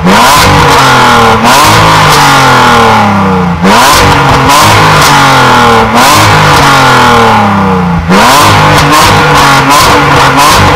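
BMW M54B30 3.0-litre straight-six being revved in free blips. About five times the revs jump up sharply and then fall back slowly toward idle.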